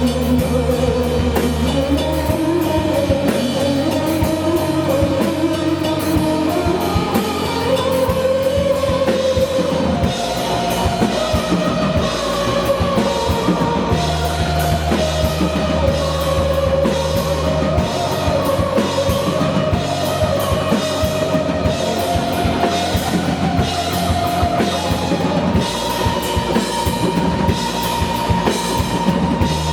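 Indie rock band playing live: a drum kit hit steadily with cymbals over held bass notes, with guitar lines weaving above.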